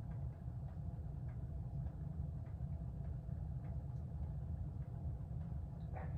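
Mid-1980s hugger ceiling fan with cane blades running on high: a steady motor hum over a low rumble of moving air. Faint irregular ticks come from a loose wire scraping the fan now and then.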